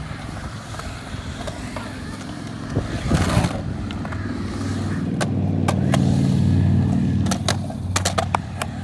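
Skateboard wheels rolling on a concrete bowl, a rumble that swells to its loudest about six to seven seconds in, with several sharp clacks of the board in the second half.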